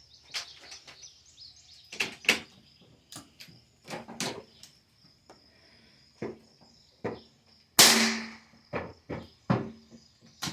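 Rifle range sounds: scattered clicks and knocks of rifles being handled, and one loud rifle shot about eight seconds in that dies away over about half a second. A faint steady high buzz, like insects, runs underneath.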